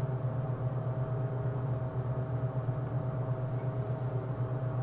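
Steady low hum with a faint even hiss: the room's background noise, with no other sound standing out.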